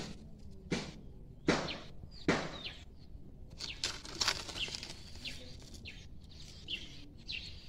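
Three short rustles in the first few seconds, then birds chirping in quick, high little calls.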